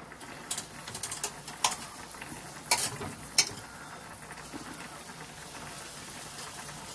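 Butter melting in a frying pan with a faint, steady sizzle. A few sharp clicks sound in the first half.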